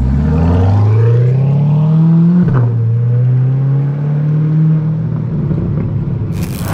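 C8 Corvette Stingray's 6.2-litre V8 accelerating away through a newly fitted LMR stainless-steel cat-back exhaust: the pitch climbs, drops sharply at an upshift about two and a half seconds in, then rises again and holds as the car drives off.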